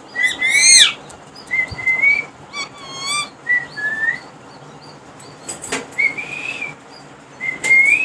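Indian ringneck parakeets calling: short rising whistles, a loud arching squawk about half a second in, and a quick rattling trill around three seconds. A few sharp clicks come in the second half.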